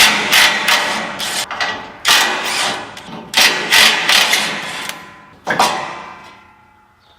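Metal clanking: a run of loud strikes, each leaving a short metallic ring, as tools and steel panels are handled while working on a backhoe.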